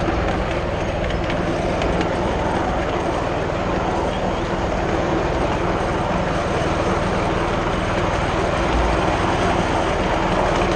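7¼ inch gauge miniature railway train running along the track: the steady rumble of its cars' wheels on the rails, heard from aboard.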